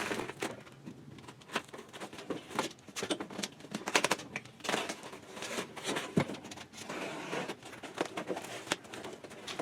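Cardboard shipping box being cut open and handled: irregular scrapes, rustles and small ticks as the end cap piece is cut away.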